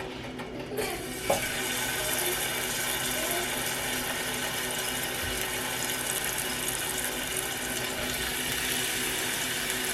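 Chicken drumsticks going into a hot oiled pan: sizzling starts abruptly about a second in, with a knock as a piece is set down, then a steady sizzle as the outside of the chicken sears.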